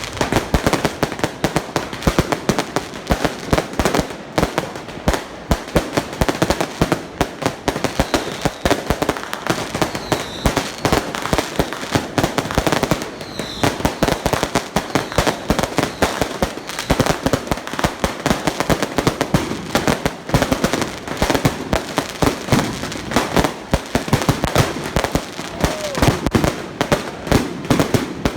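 A long string of firecrackers going off in a continuous, rapid volley of sharp bangs, many per second.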